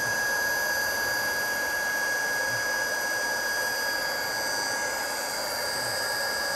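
Handheld hot-air plastic welding gun running steadily, its blower giving a rushing hiss with a constant high whine, preheating the plastic boat hull until it softens.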